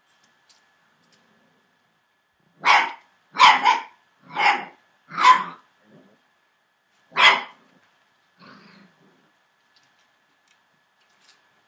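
Entlebucher Mountain Dog barking: six loud barks over about five seconds, two of them back to back and the last after a short pause, then a faint low sound from the dog.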